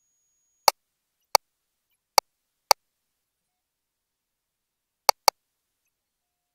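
Six short, sharp electronic key clicks from the GE Voluson E10 ultrasound system's control panel as its settings and imaging mode are changed: four spread over the first three seconds, then a quick pair about five seconds in.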